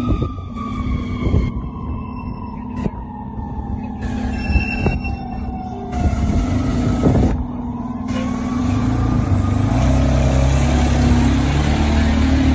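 Fire engine siren winding down in a long falling wail, then starting to wind back up, while the pumper's engine grows louder as the truck pulls past about three-quarters of the way in.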